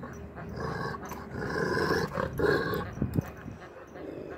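Kangal shepherd dog growling in three drawn-out stretches, followed about three seconds in by a couple of short, sharp sounds.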